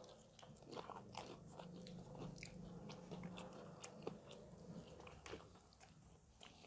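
Faint crunching and chewing of crisp fried chicken: many short, sharp crackles as the breaded coating is bitten and chewed.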